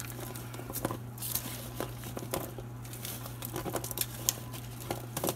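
Aluminium foil crinkling and raw carrots and potato wedges shifting as a plastic-gloved hand tosses them on a foil-lined sheet pan: irregular light crackles and taps.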